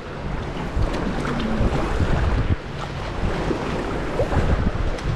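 Sea kayak paddled through choppy water: water lapping and splashing around the hull and paddle blades, with wind rumbling on the microphone.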